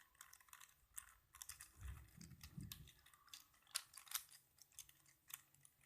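Faint, irregular plastic clicking and clacking of a 5x5 Rubik's cube's layers being twisted.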